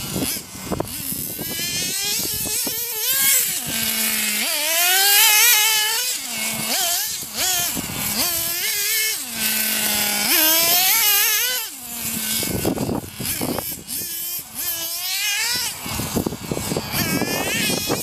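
Nitro RC buggy's Hyper .21 two-stroke glow engine revving up and down as it is driven, its high buzzing note repeatedly rising and falling. Twice the revs drop back to a steady idle for a moment before climbing again.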